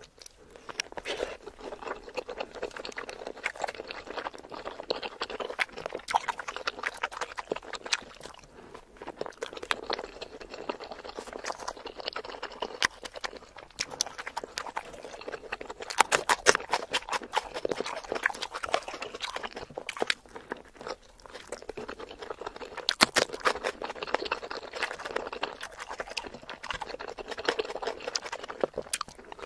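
Close-miked ASMR eating sounds: wet chewing and crunching with many sharp clicks, and a few louder crunches partway through.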